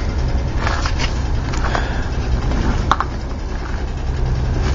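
Steady low rumble with a few short clicks, the sharpest about three seconds in.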